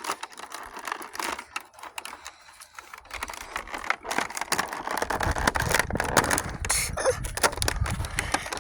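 Handling sounds of a cardboard advent calendar window being pried open and the small toy inside unwrapped: a dense run of small clicks and rustles, with low bumps joining in from about five seconds in.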